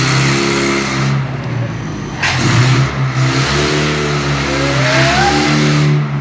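Forklift engine running and revving as the truck is driven about, a steady low hum whose note shifts up and down.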